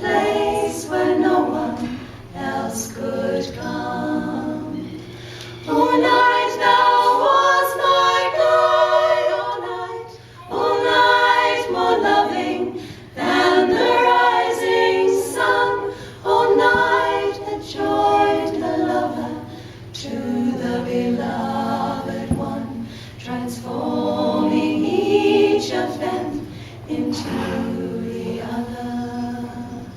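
An a cappella choir sings several voices in harmony, in long phrases with short breaths between them.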